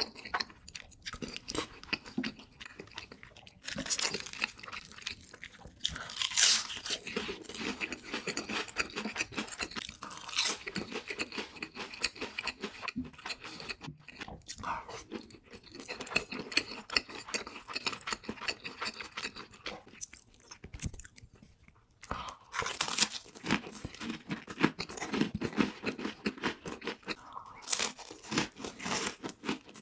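Close-miked eating sounds: noodles in cream sauce being slurped and chewed, with wet chewing and crunching bites of crisp fried food, irregular and continuous with a short pause partway through.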